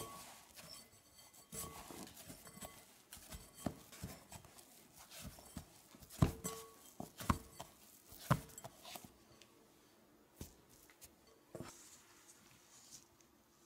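Hands rubbing and pressing crumbly shortcrust pastry dough in a glass mixing bowl, with soft gritty rustling and irregular knocks as the dough and fingers bump the glass; the loudest knocks come between about six and eight and a half seconds. Softer and sparser near the end, as the dough is pressed together on a silicone mat.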